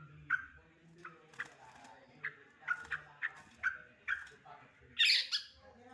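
Yellow-vented bulbul (trucukan) calling in an excited 'ngekek' run: short, sharp notes at about two a second, then a louder, higher, harsh burst about five seconds in. This worked-up chatter is the kind used as lure audio to set other bulbuls calling.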